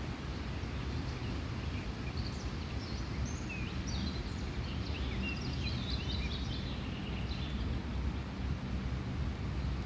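Steady low outdoor rumble, with a small bird chirping a quick run of short high notes from about two and a half to seven seconds in.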